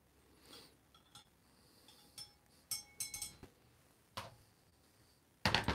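Glass beaker of hot water and its lid being handled: a few light clinks, some with a short glassy ring, about three seconds in, a sharp tap just after four seconds, and a louder clatter near the end.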